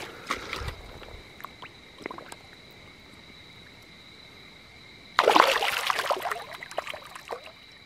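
A large fish thrashing and splashing in shallow water as it is let go by hand: a sudden burst of splashing about five seconds in that lasts about two seconds and dies away, after a few small splashes of the fish being handled in the water.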